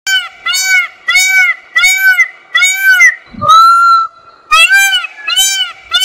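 Peacock (Indian peafowl) calling: a loud, rapid series of honking calls, about two a second, with one longer drawn-out call about three seconds in.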